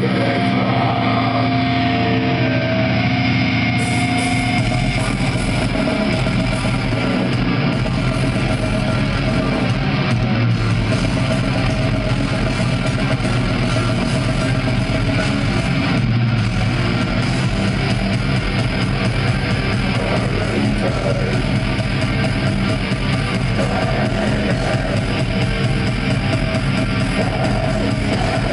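Live heavy metal band playing at full volume, heard from the crowd: distorted electric guitars over a drum kit. The opening seconds are held, droning guitar notes, and the heavy low end of drums and bass comes in about four seconds in.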